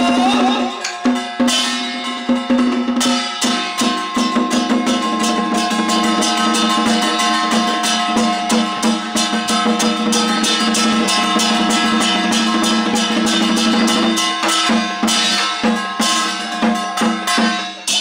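Temple ritual percussion: a drum and gongs beaten in a fast, steady rhythm, the gongs ringing on under the strikes.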